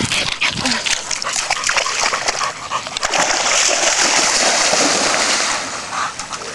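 A dog splashing through lake water: irregular splashes and sloshing, then a denser hiss of spraying water from about three seconds in, lasting a couple of seconds.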